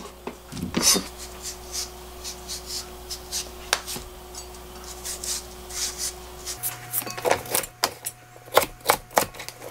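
Kitchen knife chopping a cucumber on a plastic cutting board: a steady series of short knocks, about two to three a second, louder and sharper near the end.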